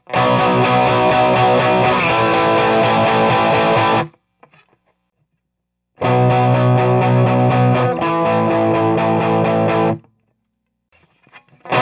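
Electric guitar power chords from a Les Paul Standard with Burstbucker pickups, played through a Marshall model 1987 50-watt valve amp clone into a miked 4x12 cabinet. A riff of about four seconds is stopped dead, then played again about two seconds later.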